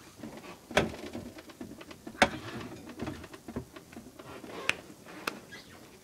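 Hands rummaging in a refrigerator's fruit drawer: a handful of sharp clicks and knocks of plastic and fruit being moved about, over faint handling noise.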